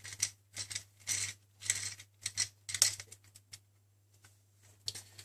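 Small screwdriver turning a tiny screw in a laptop's metal chassis: a quick run of irregular clicks and scrapes that stops about three and a half seconds in, with a few more clicks near the end.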